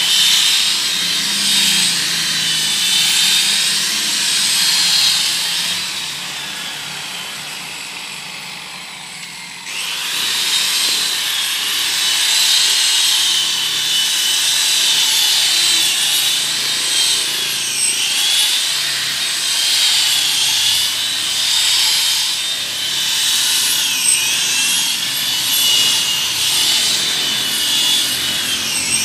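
Electric rotary polisher running with its pad pressed on a car door, buffing dull paintwork: a steady high whine whose pitch wavers as the pad is worked over the panel. It fades and quietens about six seconds in, then starts up again sharply just before ten seconds in.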